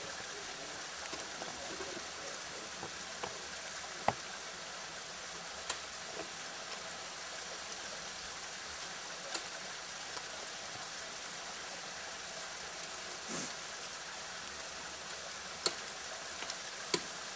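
Ice axe picks striking waterfall ice: a few sharp knocks spaced several seconds apart, over a steady hiss.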